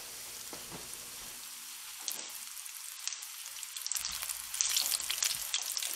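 A chocolate brownie deep-frying in a pot of hot oil: a steady sizzle with fine crackling pops that grow busier and louder about four seconds in.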